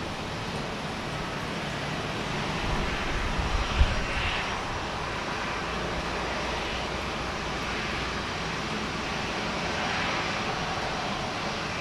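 Airport apron ambience: aircraft engines running in a steady rush with a low rumble, swelling a little twice. A single short low thump about four seconds in.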